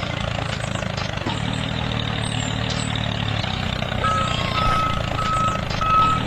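A vehicle engine running steadily, with a truck's reversing alarm beeping four times at an even pace starting about four seconds in.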